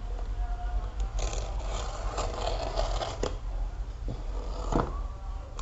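Plastic parcel wrapping scraped and poked with a pointed tool to tear it open: a scratchy rustling for about two seconds, with a few sharp clicks, over a steady low hum.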